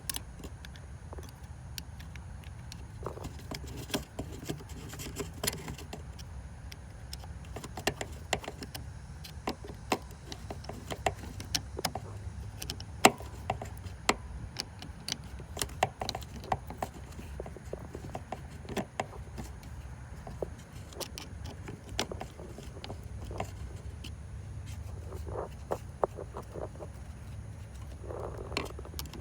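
Scattered clicks and metal clinks of tools and parts being handled under a car's hood, over a steady low rumble.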